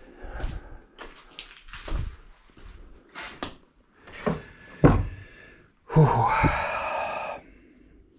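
Handling noise from a metal permanent-magnet EV motor rotor being moved and set down on a workbench: a string of knocks and thumps, the sharpest about five seconds in, followed by a harsh scraping rustle lasting about a second and a half.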